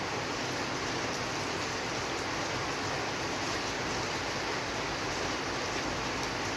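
Steady rainfall: an even, unbroken hiss of rain with fine drop ticks.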